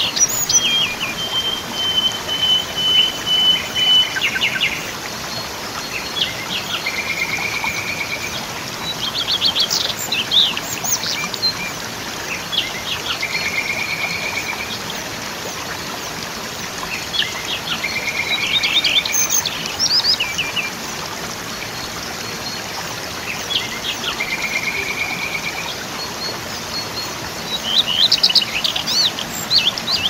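A waterfall's steady rush of falling water, with a songbird singing over it every few seconds: short phrases of quick chirps and brief held whistled notes.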